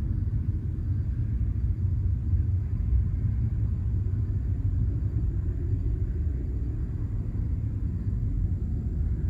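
A low, steady rumble from the sky, a vibrating drone that swells and fades slightly without stopping.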